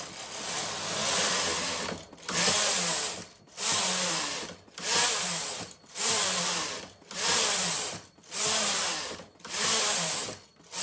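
Brother KH-970 electronic knitting machine carriage pushed back and forth across the needle bed, knitting plain rows. It comes as pass after pass, about one a second, each a loud rush with a brief gap where the carriage changes direction.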